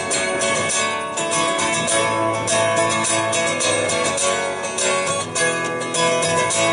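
Acoustic guitar strummed steadily in a country rhythm, with no singing: an instrumental break between verses.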